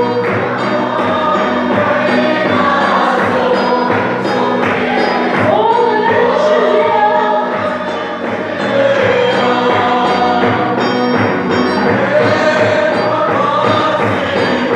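A group of people singing a lively gospel song together over a steady, repeating drum beat.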